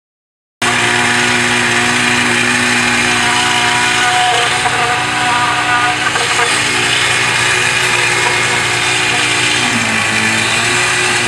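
Concrete mixer truck's engine running steadily while concrete is discharged down its chute, starting abruptly about half a second in; the engine note dips briefly and recovers near the end.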